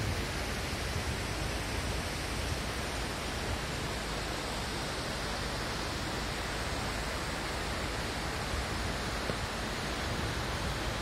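A steady, even rushing hiss at a constant level, with nothing standing out from it.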